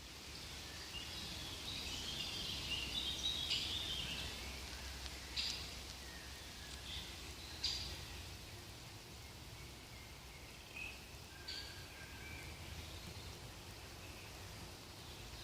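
Several songbirds singing: scattered high chirps and short trills, busiest in the first few seconds and sparser after, over a low steady rumble.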